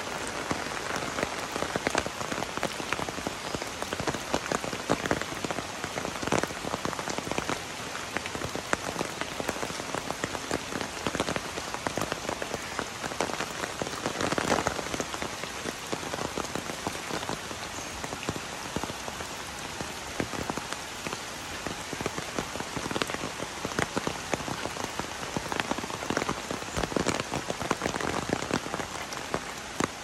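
Steady rain falling, with many sharp individual drop hits on an umbrella held overhead.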